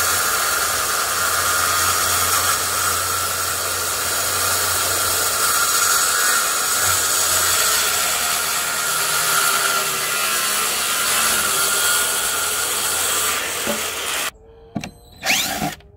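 Corded circular saw making one long straight cut through 3/4-inch plywood, running steadily under load and stopping abruptly about fourteen seconds in, followed by a few faint knocks.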